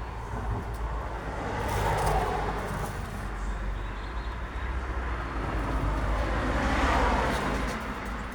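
Road traffic: two cars passing by, one swelling up and fading about two seconds in and another near the end, over a steady low rumble.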